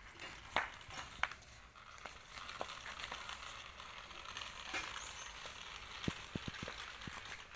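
Remote-control toy JCB loader being driven over gritty ground: a steady crackling rasp from its small motor, plastic gears and wheels. There are two sharp clicks about half a second and a second in, and a few quick knocks near the end.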